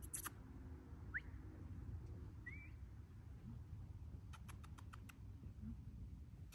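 Quiet outdoor background with a steady low rumble, a click at the start, two short high chirps in the first few seconds, and a quick run of about six light ticks a little past the middle.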